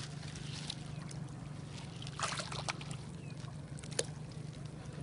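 Water splashing and sloshing around a small boat on a lake, a short cluster of splashes about two seconds in and a sharp click about four seconds in, over a steady low hum.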